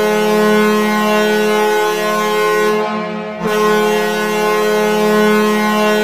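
Ice hockey arena goal horn sounding a long, loud blast of several tones at once, breaking off briefly about three and a half seconds in and then sounding again.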